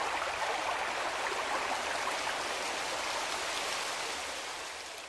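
Steady rush of falling water from a waterfall, with no music, fading out near the end.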